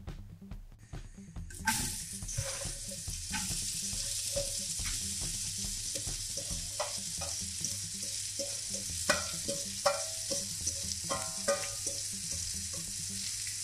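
Sliced onions and mushrooms hitting a hot frying pan of butter and oil: a sizzle starts suddenly about two seconds in and keeps up steadily, with scattered knocks and scrapes as the food is tipped in from a metal bowl.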